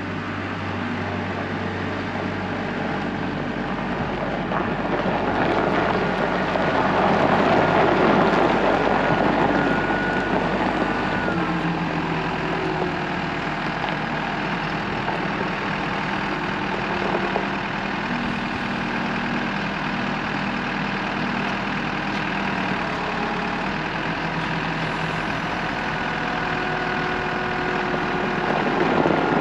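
A farm vehicle's engine running steadily, growing louder and then easing about a third of the way in.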